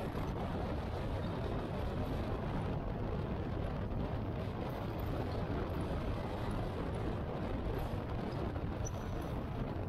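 Motorcycle riding along at a steady pace: an even rush of wind and road noise, strongest in the low end, with no changes in speed.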